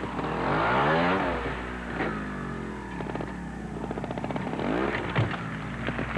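Trials motorcycle engine revving in short blips, its pitch rising and falling as the rider works the throttle through the obstacles, with a sharp knock about five seconds in.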